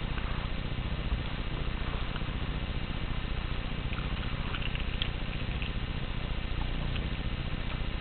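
Steady low rumble with a fast flutter, with a few faint light ticks around the middle.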